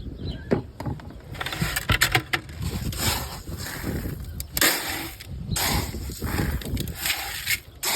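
Footsteps and rustling handling noise from someone walking with a phone camera: irregular crunches and scuffs with a low rumble on the microphone.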